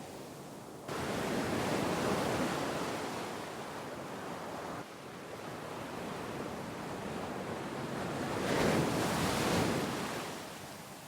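Sea waves surging and washing ashore in two swells: the first comes in abruptly about a second in, and the second builds to a peak a few seconds before the end, then falls away.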